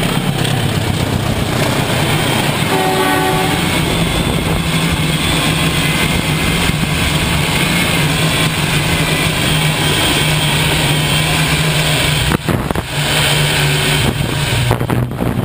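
Train running past at a railway level crossing: a loud, steady rumble, with a short horn-like tone about three seconds in.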